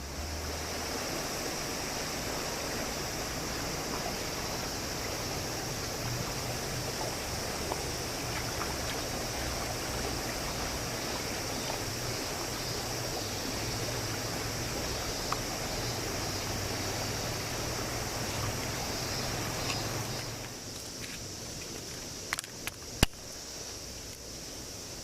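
Mountain stream water running steadily, with a constant high hiss above it. About twenty seconds in the rushing drops away to a quieter outdoor ambience, and a few sharp clicks come near the end.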